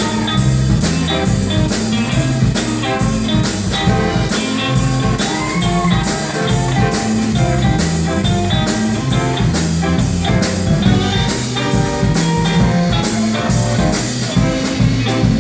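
Live blues band playing an instrumental passage: guitar over a drum kit keeping a steady cymbal beat, with a moving low bass line.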